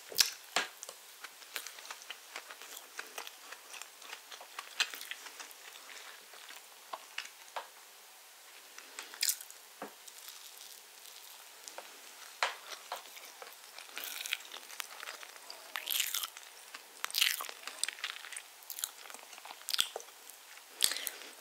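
Close-miked eating sounds: a person biting into and chewing a soft iced spiced orange sponge cake, with irregular mouth clicks and small bursts of chewing that grow denser from about the middle on.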